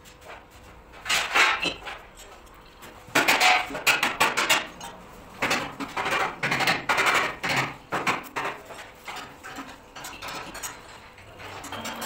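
Loose metal bolts and hand tools clinking and rattling against each other and the paved floor, in several irregular bursts of a second or two.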